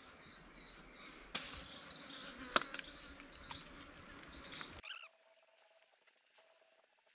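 Faint outdoor ambience of insects chirping in a high, repeated pattern about three times a second, with two sharp clicks, the second the loudest. About five seconds in, the background drops away suddenly and only a faint hum is left.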